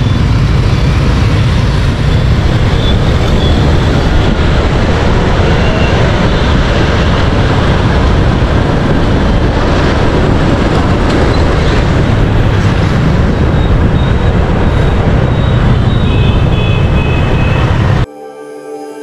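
Loud, steady motorbike traffic noise with a few short horn tones near the end, then a sudden cut to music about eighteen seconds in.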